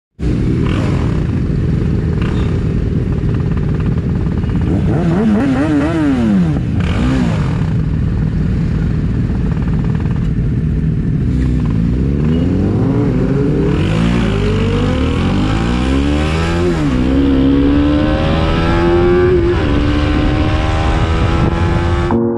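Sport motorcycle engines running, with a throttle blip that rises and falls, then the bike pulling away and accelerating through the gears: the pitch climbs in sweeps and drops at each upshift, settling into a steady cruise near the end.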